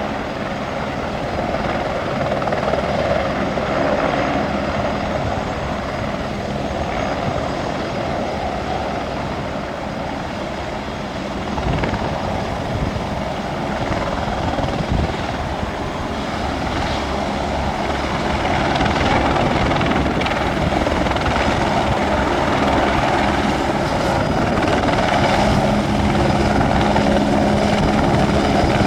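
Aerospatiale AS355F2 Ecureuil 2 twin-turbine helicopter running, a steady rotor and turbine noise with a held low hum. It grows louder over the last third.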